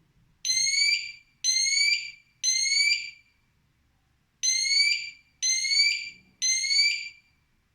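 Siterwell GS559A wireless smoke alarm sounding its alarm with the test button held: loud, high beeps, each rising slightly in pitch, in two groups of three with a pause of about a second between groups, the standard temporal-three smoke alarm pattern.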